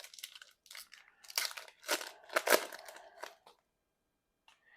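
Crinkling and rustling of a baseball card pack's wrapper and cards being handled, in a string of short rustles that stops about three and a half seconds in.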